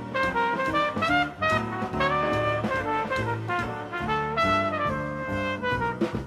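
Instrumental jazz theme music, with brass playing the melody over a rhythm section.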